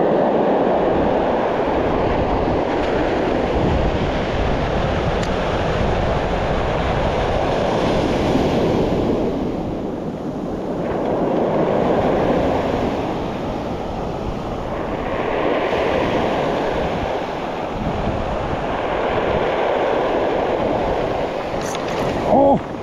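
Sea surf breaking and washing up a pebble beach, the rush of water swelling and fading every few seconds as each wave comes in.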